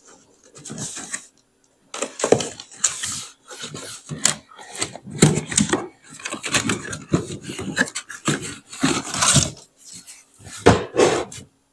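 Packaging and parts being handled while a cordless chainsaw is unboxed: irregular rubbing, scraping and rustling, broken by sharp knocks and short pauses.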